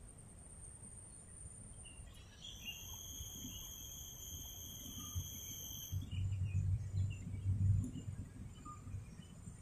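Forest insects keep up a constant faint, high, thin trill. About two seconds in, a steady high whistling call starts and holds for nearly four seconds, then stops. A low rumbling noise follows and is briefly the loudest sound.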